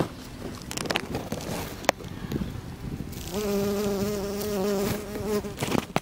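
A bumblebee buzzing close to the microphone: a steady hum that starts about halfway through and lasts about two seconds. A few sharp clicks come before it.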